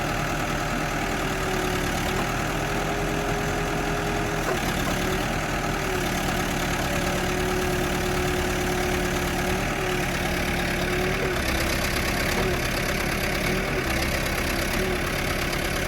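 New Holland B95 backhoe loader's diesel engine running steadily, with a steady high whine that dips briefly several times from about four seconds in.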